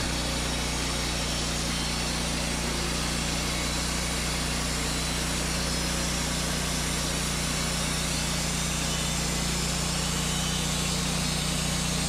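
Wood-Mizer LT40 Hydraulic Wide portable sawmill's engine running at a steady speed, an even low drone that does not change.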